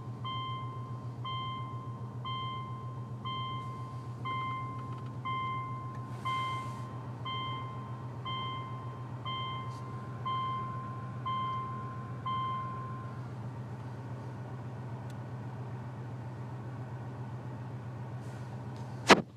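A steady low hum from the 2005 Subaru Legacy GT's A/C system running on after the car is switched off, the noise the owner is asking about; it ends abruptly with a sharp click just before the end. Over the first dozen seconds a warning chime beeps about once a second, thirteen times, then stops.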